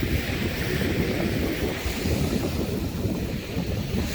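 Wind buffeting the microphone, a steady low rumble that flickers unevenly.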